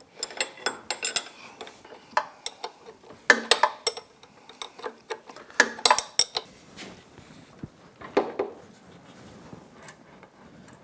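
Steel wrench and nuts clinking against metal as the nylon lock nuts are worked off the studs of an outboard's upper casing: scattered sharp, ringing clinks in several clusters, thinning out over the last few seconds.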